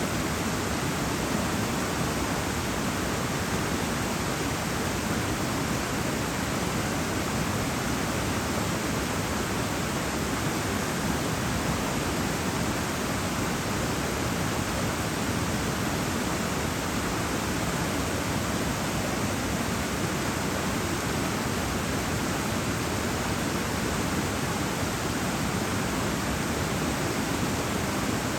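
River water rushing in a steady, unbroken hiss with no separate splashes or changes.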